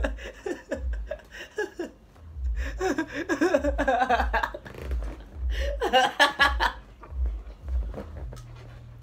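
A young man laughing hard and helplessly, in several fits with short breaks between them, the strongest about a third of the way in and again about two-thirds in.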